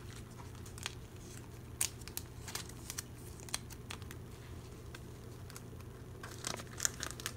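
Clear plastic binder pocket pages crinkling, with scattered light clicks and rustles as a photocard is handled and slid into a sleeve, over a low steady hum.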